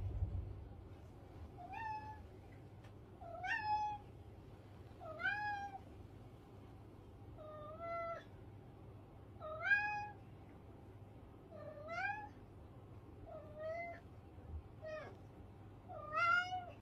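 A domestic cat meowing over and over, about nine short meows roughly every two seconds, each one rising in pitch and then holding.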